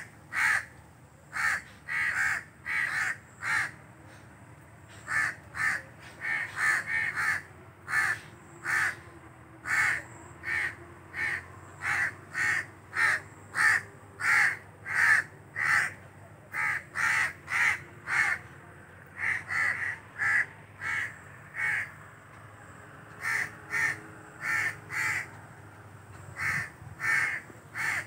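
Crows giving harsh alarm caws, short calls repeated about once or twice a second with a few brief pauses. The crows are sensing danger from a person close to them.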